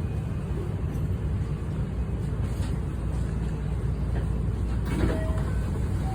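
Steady low rumble inside a JR West 321 series electric train car running slowly as it draws into a stop, with a short faint whine about five seconds in.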